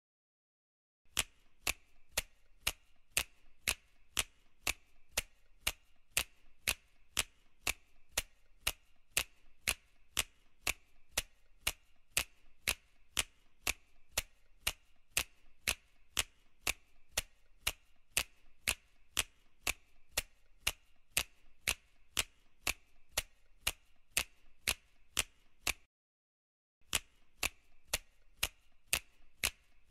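Steady mechanical ticking, about two sharp ticks a second, like a clock, stopping briefly near the end and then starting again.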